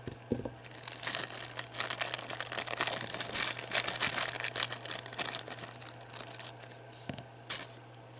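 Thin clear plastic bag crinkling as a prepainted miniature is unwrapped from it. The crackling is densest from about one second in to about five seconds, then dies down to light handling with a couple of small clicks near the end.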